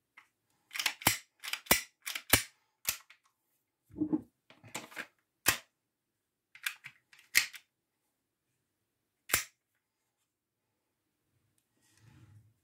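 Sharp plastic-and-metal clicks and clacks of an airsoft Glock 17 replica being worked by hand, its slide and parts snapping into place, about a dozen spread over several seconds with a duller knock about four seconds in.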